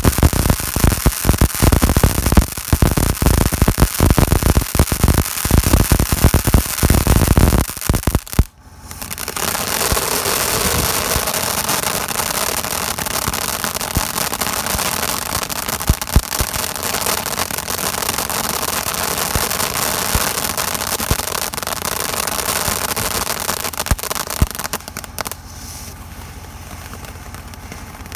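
WISEGUY All-in-One Eruption firework fountain burning. For about the first eight seconds it gives off dense crackling, then it falls briefly quiet. After that comes a steady hissing spray of sparks with occasional pops, which softens for the last few seconds.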